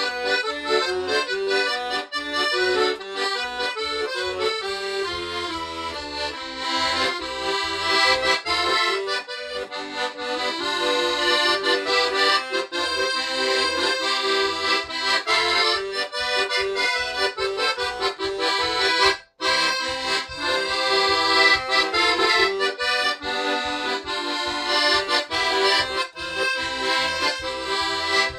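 Weltmeister piano accordion playing a lively polka, melody on the right-hand keys over a steady rhythmic bass-and-chord accompaniment. The sound breaks off for an instant about two-thirds of the way through.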